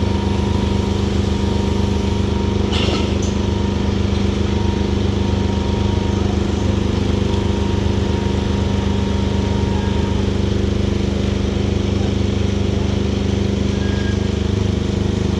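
Diesel engine of a Kobelco SK200 hydraulic excavator running steadily at a constant speed, with a short knock about three seconds in.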